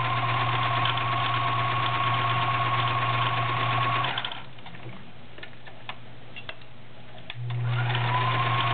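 Kenmore 148.1937 sewing machine running steadily at an even pitch, sewing a stretch stitch through five layers of denim and pulling the thick fabric through without straining. It stops about four seconds in, a few light clicks follow as the fabric is handled, and it starts sewing again near the end.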